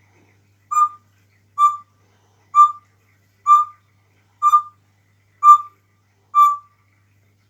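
African grey parrot giving seven short, clear whistle-like notes in a steady series, about one a second, each on the same pitch.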